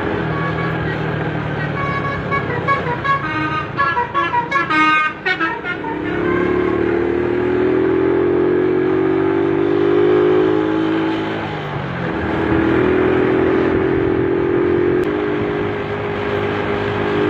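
Multi-tone 'telolet' bus horns: a quick run of high stepping notes a couple of seconds in, then long held lower horn chords with a short break partway through, over a running bus engine.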